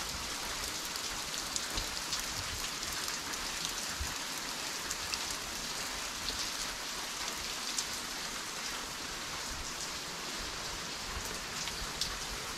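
Water dripping and showering from the rock overhead onto wet rock, a steady patter like light rain with single drops ticking through it.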